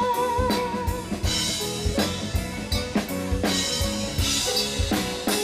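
A sung note held with vibrato fades out about a second in. Then comes an instrumental stretch of a Thai pop ballad: a drum kit keeps a steady beat with kick and snare under bass and other band instruments.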